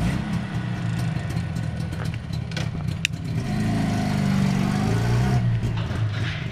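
Jawa 640's two-stroke twin engine, being run in after its cylinders were honed, running and then revving up as the motorcycle pulls away, the revs falling off again near the end. A sharp click about three seconds in.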